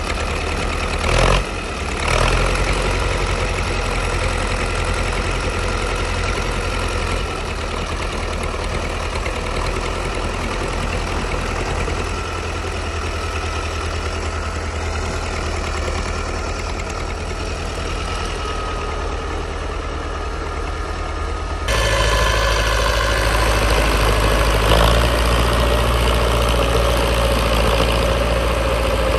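T-40 tractor's diesel engine running at a steady speed while the tractor works through deep snow, with a brief loud burst about a second in. About three-quarters of the way through the engine sound suddenly becomes louder and fuller.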